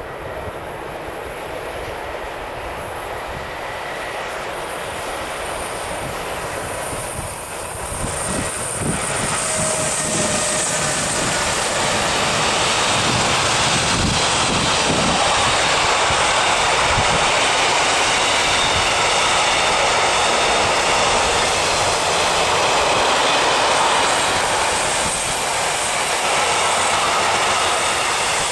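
Intermodal container freight train passing on an electrified main line: a rumble that grows louder for about the first ten seconds, then a steady loud rumble and hiss as the wagons roll past close by.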